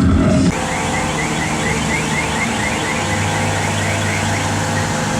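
Loud car audio system playing heavy bass, which cuts off about half a second in. A rapid high chirping, about five a second, follows over a steady low hum and fades out near the end.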